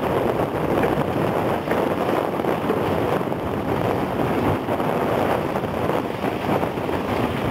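Wind buffeting the microphone, a steady rushing noise that rises and falls slightly in strength.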